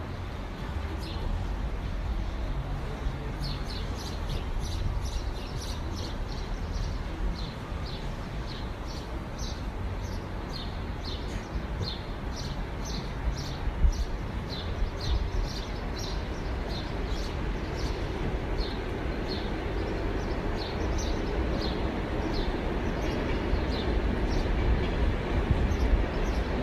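A bird chirping over and over, short falling chirps about twice a second, over a steady low outdoor rumble that grows louder near the end.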